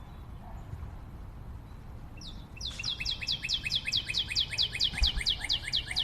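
A bird singing a fast trill of short downward-sweeping chirps, about five a second, starting about two and a half seconds in, over a low steady rumble.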